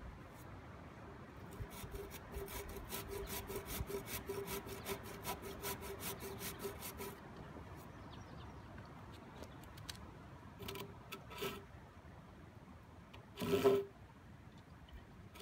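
Hand saw cutting a pressure-treated pine board, a quick run of strokes at about four a second, then a pause and a few single strokes, ending with one louder, longer stroke near the end.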